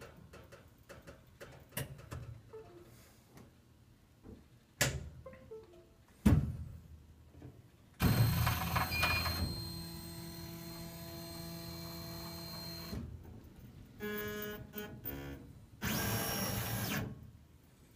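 Stepper motors of a 50 W laser engraver moving the laser head through its cycle. A couple of thunks come first, then about five seconds of steady whine with several tones, then a shorter pulsing buzz and a rush of noise near the end.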